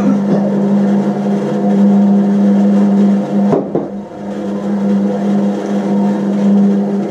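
Bandsaw running at a steady speed, a constant motor hum with overtones, with a brief knock about three and a half seconds in.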